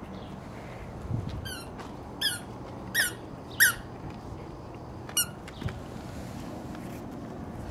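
A small squeaky ball squeaking as a Dogo Argentino puppy chews it. There are five short, high squeaks, the first near the start of the second second and the last about five seconds in, the fourth the loudest.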